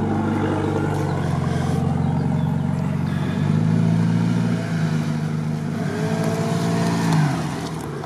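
Off-road SUV's engine pulling up a steep dirt slope toward the microphone at low revs. The revs step up about halfway through, then rise briefly and drop away near the end as the vehicle tops the climb.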